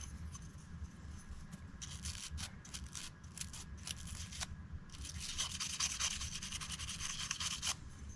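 Small toothbrush scrubbing greasy pocket-knife parts wet with brake cleaner: a few short, separate strokes, then quick continuous scrubbing from about five seconds in until just before the end.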